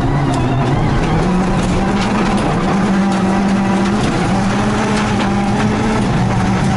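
Rally car engine under hard acceleration, heard from inside the cabin: revs climb over the first second and a half, then hold high and steady. Occasional sharp clicks, likely gravel striking the body.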